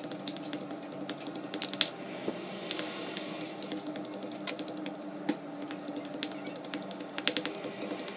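Shallots, garlic, candlenuts and bird's-eye chillies being crushed by hand in a stone mortar: irregular light clicks and knocks of hard ingredients and stone against stone. A steady low hum sits underneath.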